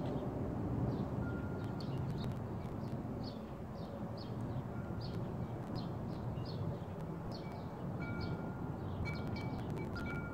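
Outdoor breeze with steady low wind noise, while a small bird chirps over and over, about two short calls a second. Faint held chime-like tones come in during the second half, and a few light clicks sound near the end.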